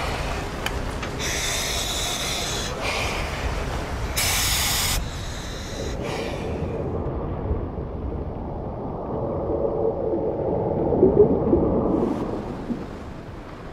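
Diver breathing through a scuba regulator, several hissing breaths over the first five seconds, the last the loudest. A muffled underwater rumble follows; it swells around ten seconds in and drops away near the end.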